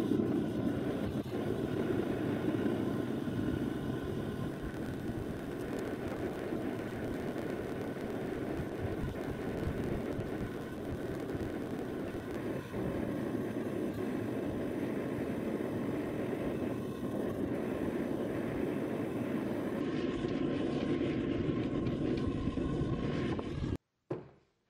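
Propane forge burner lighting and then running with a steady, even rushing noise. It stops abruptly about a second before the end.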